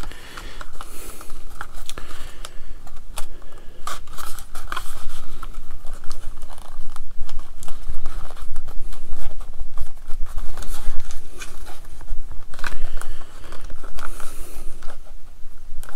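Large rubber grip being worked onto the handle of a FlySky FS-GT3C radio transmitter: irregular rubbing and creaking with many small plastic clicks and knocks as it is pushed over the handle's lugs.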